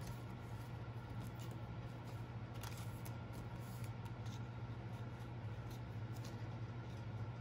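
Faint rustling and light clicks of plastic photocard sleeves being handled, over the steady low hum of an air conditioner.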